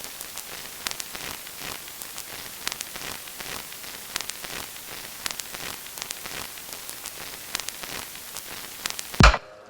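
Vinyl record surface noise: a steady hiss with irregular crackles and pops. Near the end it cuts off into one loud, deep musical hit as the music starts.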